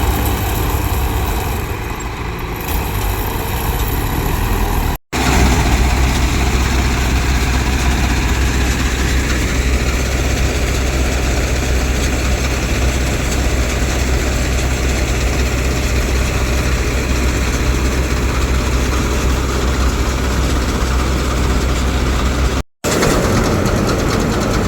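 Heavy farm-machine diesel engine running steadily with a deep even hum, cut by two brief dropouts about five seconds in and near the end.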